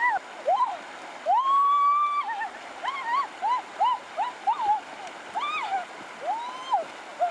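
A toddler's high-pitched squeals and babbling cries: a string of short rising-and-falling calls, with one long held note about a second in. Behind them, shallow stream water runs steadily over rocks.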